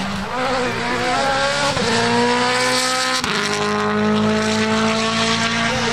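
Rally car engine accelerating hard. Its pitch climbs steadily and drops sharply twice, about two and three seconds in, as it shifts up through the gears.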